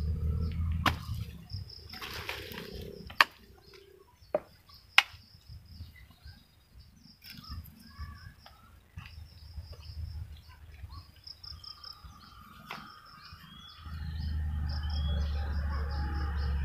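A hand tool striking damp, clumpy soil in several sharp knocks during the first five seconds, over insects chirping steadily at a high pitch. A low rumble comes in near the end.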